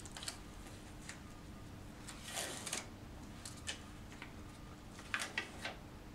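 Light rustling and crinkling of a sterile IV Tegaderm film dressing and its paper packet being handled and peeled, with a few small sharp clicks. There is a longer rustle about two and a half seconds in and a quick cluster of crinkles near the end.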